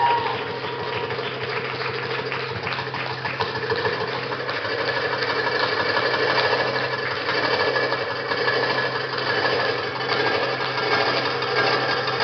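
Arabic goblet drum (darbuka, called tabla) playing a drum solo in a fast, continuous roll of dense rapid strokes, heard over loudspeakers.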